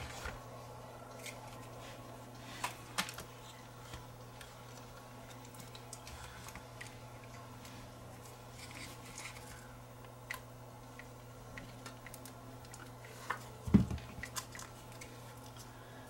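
Sparse small clicks and taps of plastic and metal camcorder parts being handled and fitted together during reassembly, over a steady low hum, with one louder knock about fourteen seconds in.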